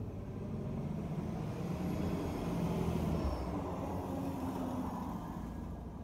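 A motor vehicle passing by: engine and tyre noise that swells, peaks about halfway through and fades away.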